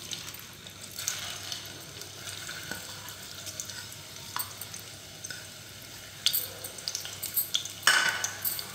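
Sliced onions sizzling and crackling in hot cooking oil in a pot as they are tipped in to fry. The crackling grows busier and louder after about six seconds, with one sharp clatter shortly before the end.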